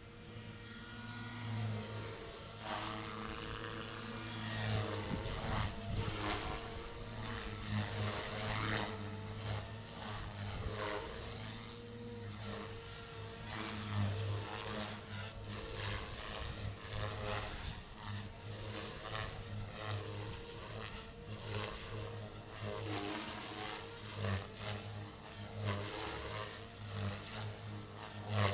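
Compass Warp 360 electric RC helicopter flying with 3D rotor blades: a rotor and motor whine that keeps rising and falling in pitch and loudness as it manoeuvres.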